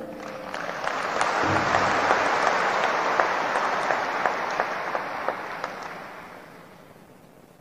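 A large audience applauding, swelling over the first couple of seconds, then fading out near the end.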